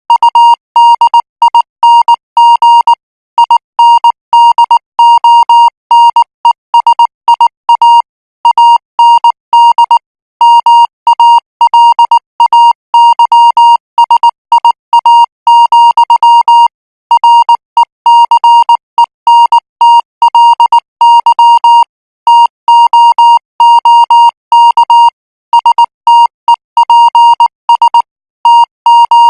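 Morse code practice signal sent at 18 words per minute: a single high-pitched beep keyed on and off in short dots and longer dashes, with brief gaps between letters and words.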